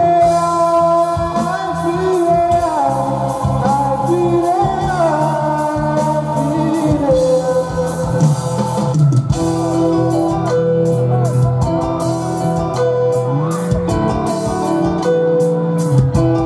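Live band music with a singer: a gliding vocal melody over steady keyboard and bass accompaniment, with drum strokes coming through more clearly in the second half.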